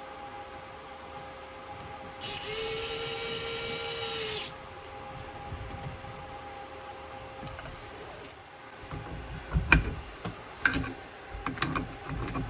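A cordless power drill-driver runs steadily for about two seconds, then a series of sharp metallic clanks and knocks from tools and faucet parts being handled.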